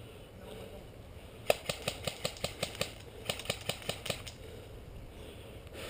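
Airsoft gun firing two quick strings of shots, about five a second: about eight snaps, a brief pause, then about five more.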